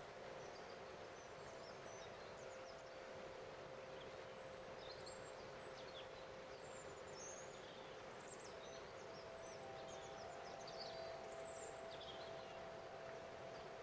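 Water running over a small stepped waterfall, an even rush, under a crystal harp holding long steady notes; a higher note comes in about two-thirds of the way through. Birds chirp faintly.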